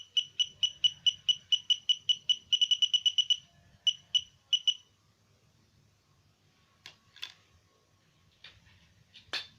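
Simple home-built metal detector beeping, short high beeps about four a second that quicken for about a second, then thin out and stop about five seconds in. A few sharp clicks or knocks follow near the end.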